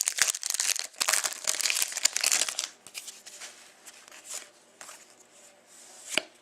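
Wrapper of a hockey trading-card pack crinkling and tearing as it is opened. It is busy for the first two and a half seconds, then turns to quieter handling with a few light clicks.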